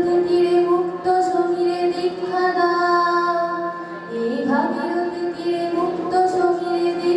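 A woman singing long held notes to her own harmonium, sliding up into a new phrase about four and a half seconds in, with light tabla accompaniment.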